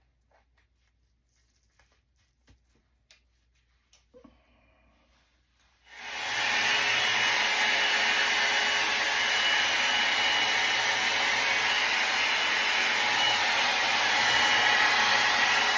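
Faint handling clicks and rustles, then about six seconds in a hand-held hair dryer switches on and runs steadily, blowing air over hair set in velcro rollers.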